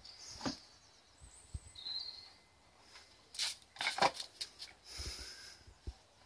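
A dog nosing and pawing at a plastic dustpan and brush on stone paving: scattered light clacks and scrapes, with a busier run of knocks about three to four and a half seconds in.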